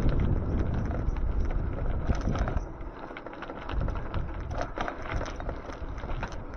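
Wind buffeting the microphone of a moving e-bike, with scattered clicks and rattles from the ride. The low rumble eases about two and a half seconds in.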